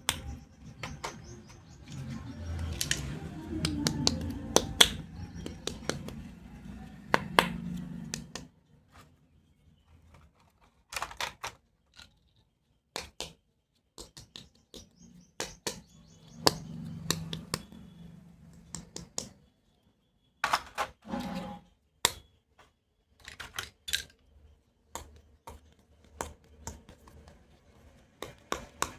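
Plastic pieces of a toy doctor kit being handled and set down: scattered sharp clicks and taps, with stretches of rustling in the first eight seconds and again about halfway through.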